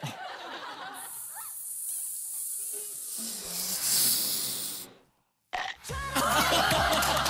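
Air hissing and growing louder, like a balloon being blown up, for a heart gesture blown into cupped hands; it stops suddenly about five seconds in. Music and voices start near the end.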